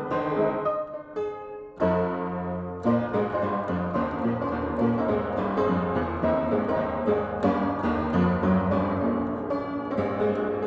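Old upright piano, its front panel off, played in chords and runs. The playing thins out just before two seconds in, then comes back with a loud chord. The player calls it a lousy piano, older than clowns.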